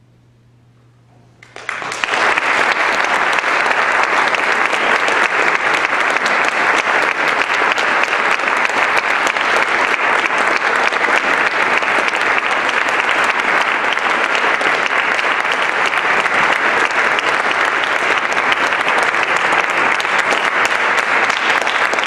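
A faint low hum, then audience applause breaks out about a second and a half in and continues steadily.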